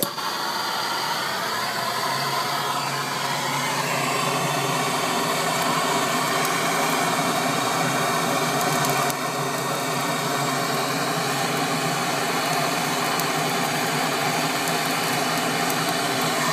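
Bernzomatic hand torch running with a steady hiss, its flame held into lump charcoal to light it, with occasional faint crackles as the charcoal sparks.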